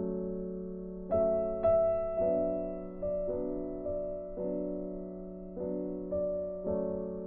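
Slow, gentle background piano music: soft notes and chords struck about once a second and left to ring and fade.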